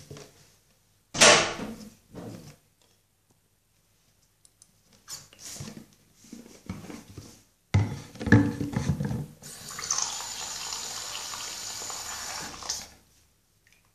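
A plastic shampoo bottle handled, with a few knocks and rustles. Then a tap runs water in a steady rush for about three seconds and is shut off, giving the shampoo-and-water mix for the foam.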